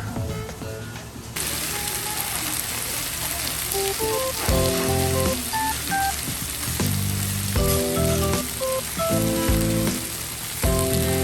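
Food frying and sizzling, a dense hiss that starts suddenly about a second in, under background music with a simple melody.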